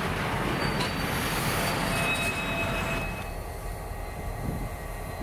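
Freight cars rolling slowly through a switching yard: steel wheels rumbling on the rails, with brief high-pitched wheel squeals. About three seconds in, this drops to a quieter, lower rumble.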